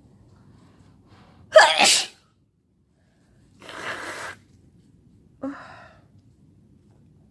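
A sick person sneezing hard once, about one and a half seconds in, followed by a quieter breathy rush of air about two seconds later and a short burst near the end.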